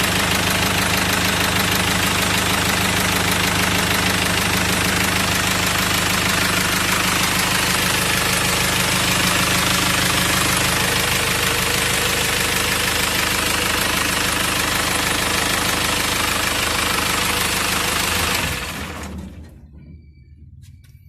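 Isuzu 4HF1 diesel engine running steadily, then shutting off about three seconds before the end, its sound dying away over about a second.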